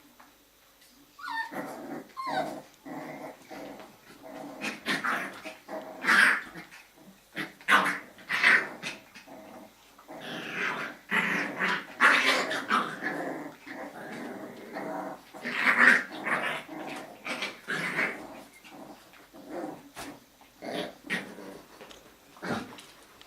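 Jack Russell Terrier puppies growling and yapping at play, starting about a second in and going on in rapid overlapping bursts.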